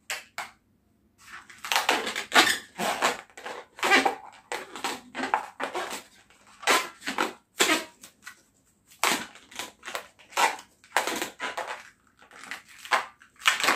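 Latex modelling balloon squeaking and creaking in a string of short, irregular squeaks as it is squeezed and twisted into small bubbles.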